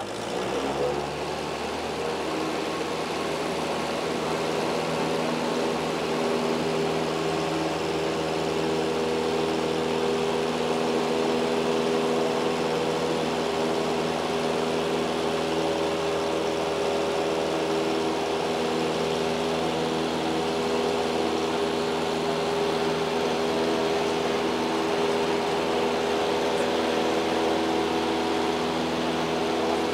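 Single-engine light airplane's piston engine and propeller running steadily, heard from inside the cockpit; the engine note rises in the first second or two, then holds steady.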